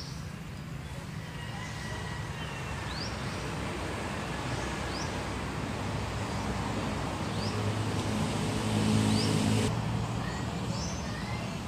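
Short, high, rising bird chirps every second or two over a steady outdoor background rumble. A passing motor vehicle's engine hum builds and is loudest about nine seconds in, then fades.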